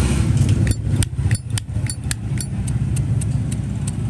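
Steady low rumble of road traffic, with a run of sharp, light clicks about three a second.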